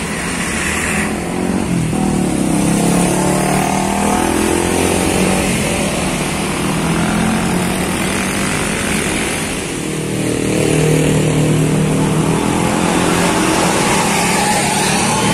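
Diesel engine of a large intercity bus pulling away and accelerating, its pitch rising, dipping briefly just before ten seconds in, then rising again, with motorbikes and cars passing in the traffic.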